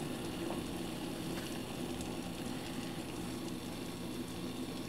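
Electric gooseneck kettle heating water toward the boil: a steady hiss and rumble.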